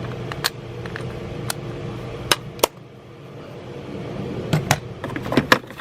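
Hand tools being handled and set down, a series of sharp metal clicks and clinks, about eight, over a steady low hum.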